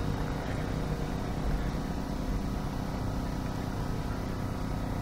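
Two military helicopters in flight, one of them an OH-6 light helicopter: a steady drone of rotors and turbine engines with a low, fluttering beat.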